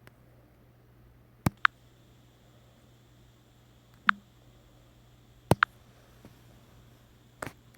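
Kangaroo clicking: six short, sharp clicks in four groups (two pairs and two singles) spread a second or two apart, several with a brief high squeak.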